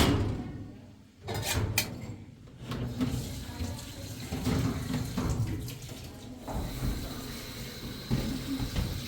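Water running steadily, as from a tap into a sink, with a few sharp clinks of dishes about one to two seconds in.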